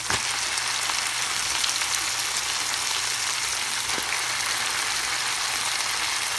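Kangkong (water spinach) going into hot oil in a pan, with a knock right at the start, then a steady, louder sizzle as the wet greens fry.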